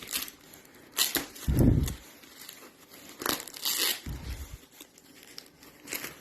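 Packaging being torn open and crumpled by hand, in several short rustling bursts with a few dull thumps of handling between them.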